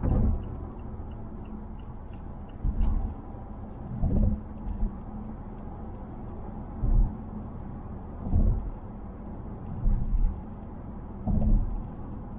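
Cabin noise of a 2020 Mazda Atenza being driven: a steady low road and engine rumble, with a louder low thump about every one and a half seconds.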